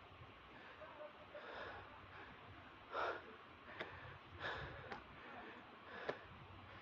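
A person breathing hard, out of breath from climbing a long flight of steps: heavy breaths about one and a half seconds apart, with a few sharp taps in between.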